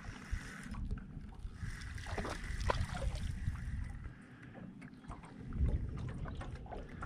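Wind buffeting the microphone over water lapping at the side of a small fishing boat, with a faint steady high whine that stops a little over halfway through.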